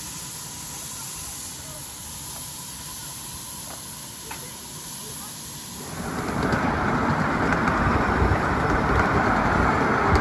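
A 1/8-scale northern type (4-8-4) live steam locomotive standing with steam hissing softly from its stack. About six seconds in, a much louder, steady rushing rumble takes over: the noise of riding behind the small train along the track.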